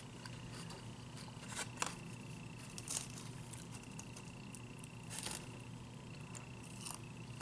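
Eating salad: a few scattered crunches of lettuce being chewed and clicks of a fork in a plastic takeout salad container.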